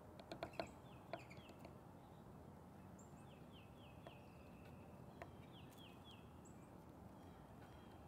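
Downy woodpecker pecking at a suet cake, a few sharp taps in the first second, over a faint background of another bird's short, high, falling chirps in runs of three or four.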